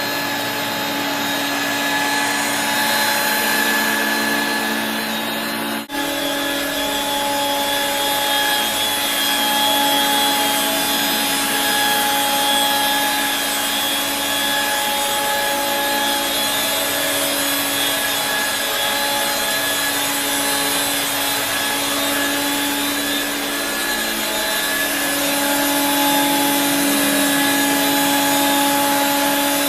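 1985 Regina Electrikbroom PowerTeam stick vacuum running steadily, its suction motor and motorized beater-brush power nozzle giving a steady whine over a rushing hiss, with a momentary break about six seconds in.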